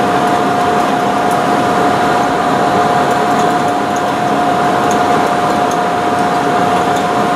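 A loud, steady machine hum with a constant mid-pitched whine, and a few faint light clicks of a metal instrument stirring bone graft in a small stainless steel dish.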